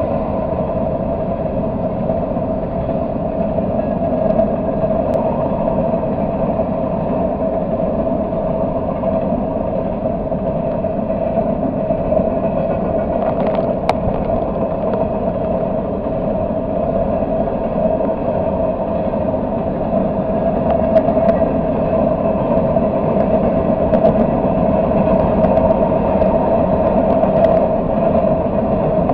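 Freight train of hopper cars rolling past: a loud, steady rumble of steel wheels on rail, with a few short clicks.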